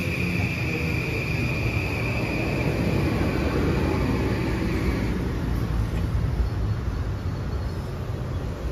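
Kawasaki M8 electric multiple-unit train rolling along the platform, its wheels rumbling on the rails, with a steady high whine that fades out about five seconds in.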